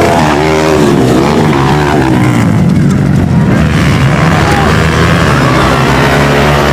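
Several 150cc-class trail motorcycle engines racing on a dirt track, revving up and down as the riders work the throttle, over a steady drone of bikes further off.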